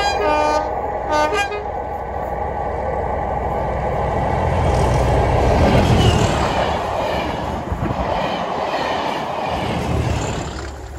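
Class 37 diesel locomotive giving two short blasts on its two-tone horn, then passing with its English Electric V12 diesel engine running loudly, loudest about six seconds in and fading near the end.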